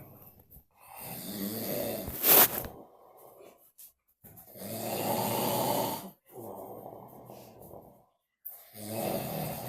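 A man snoring in his sleep: three long snores, each followed by a softer, shorter breath. The first peaks in a sharp, very loud burst about two seconds in.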